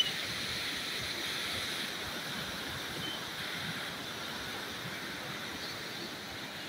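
Brown floodwater of the Sutlej River pouring through the gates of a barrage: a steady rushing of water.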